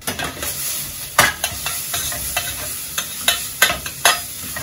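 Food being reheated in a hot pan: a steady sizzle, with a spoon stirring and knocking against the pan in irregular sharp clicks.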